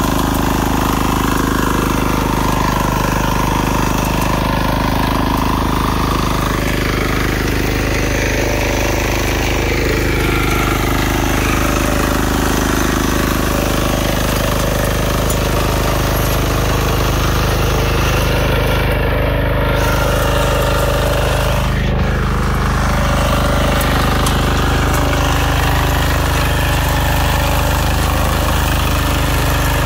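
Small engine of a walk-behind power tiller running steadily under load while its rotary tines dig through soil.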